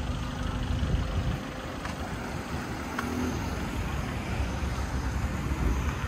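Road traffic: cars and pickup trucks going by with a steady low engine rumble.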